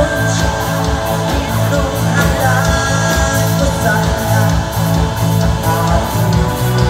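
A live band playing: electric guitar, bass and drums with a steady beat, and women's voices singing.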